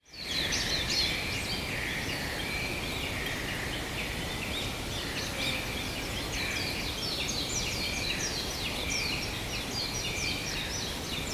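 Rainforest ambience: many birds calling at once in short, overlapping chirps and whistles over a steady background hiss, fading in at the start.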